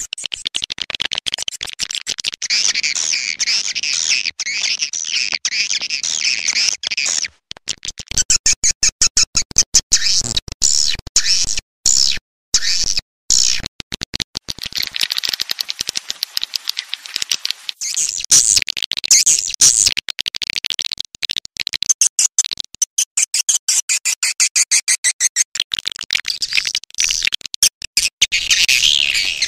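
Swiftlet call sound: a recorded lure call of edible-nest swiftlets, a dense, rapid, high twittering and clicking chatter that is used to draw swiftlets into a swiftlet house. It cuts out briefly about a quarter of the way in and twice near the middle.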